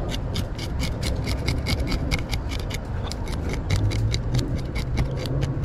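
Serrated metal fish scaler scraping the scales off a mangrove snapper in quick, even strokes, about five a second, with a low steady hum underneath.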